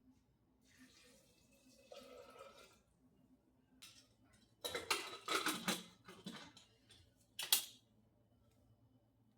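Faint handling noises: a run of light clicks and clatters for about a second and a half in the middle, then one sharper clatter near the end.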